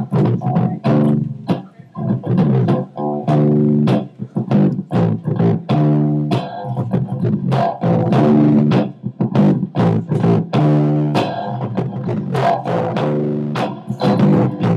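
Solo guitar playing an instrumental passage: rhythmic plucked notes and chords with sharp attacks, with no singing.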